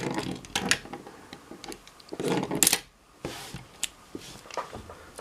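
Hard plastic clicks and rattles of a Bakugan figure being folded shut by hand, its hinged parts snapping into the ball form, as a series of irregular small clicks.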